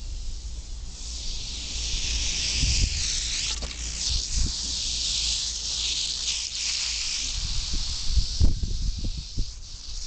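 Albino Western diamondback rattlesnake shaking its tail rattle: a continuous buzz that starts about a second in, wavers in strength, and stops shortly before the end, the snake's defensive warning. A few low knocks follow near the end.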